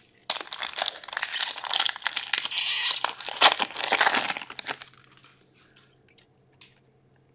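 Foil hockey card pack wrapper being torn open and crinkled by hand: a dense rustling crinkle that stops about five seconds in.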